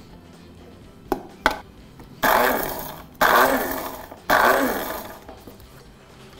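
Electric spice grinder pulsed three times, about a second each, blitzing dried herbs and spices into powder. Each burst starts suddenly and fades. Two short clicks come just before, as the lid is pressed down.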